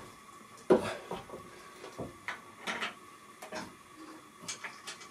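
Irregular knocks and clinks of hand tools and metal parts being handled while a car's front strut is fitted. The loudest knock comes under a second in, with lighter clicks scattered after it.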